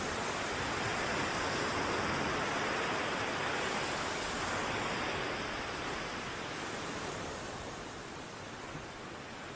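Ocean waves washing ashore: a steady rush of surf that swells in the first few seconds and ebbs toward the end.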